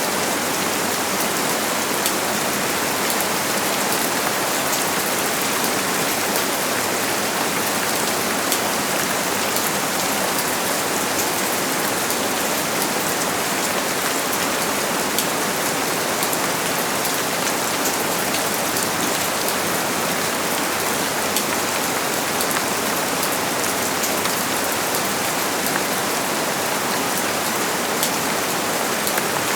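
Steady rain falling and pattering on a surface, an even hiss with fine drop ticks.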